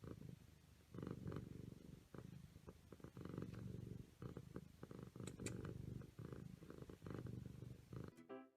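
A domestic cat purring close up, the purr swelling and easing about once a second with its breathing. It cuts off near the end as piano music begins.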